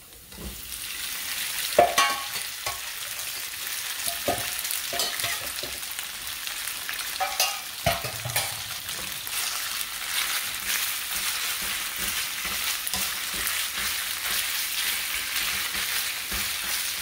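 Marinated beef slices hitting hot oil in a nonstick frying pan and sizzling: the sizzle starts under a second in and builds into a steady crackling hiss. A few sharp knocks of the bowl and wooden spatula against the pan come in the first eight seconds, then stirring.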